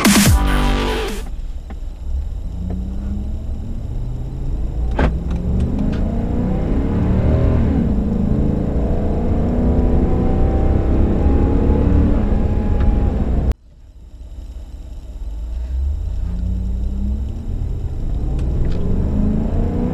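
6.4-litre HEMI V8 of a 2017 Ram 2500 Power Wagon on its stock air intake, heard from inside the cab as the truck accelerates from a slow roll, the engine note climbing and dropping back as the automatic shifts up. About two-thirds through the sound cuts off abruptly and a second run begins, the truck pulling away again with the note rising.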